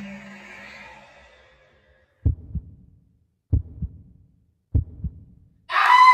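A heartbeat sound effect: three double lub-dub thumps about a second and a quarter apart, after a low drone that fades away over the first two seconds. Near the end a loud, shrill cry breaks in.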